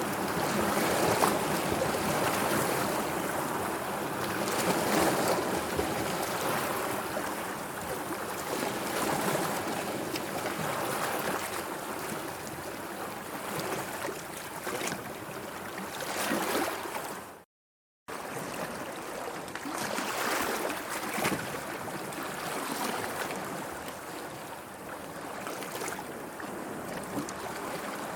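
Sea waves washing in, a steady rush of water that swells and eases in slow surges. About two-thirds of the way in, the sound cuts out completely for half a second, then comes straight back.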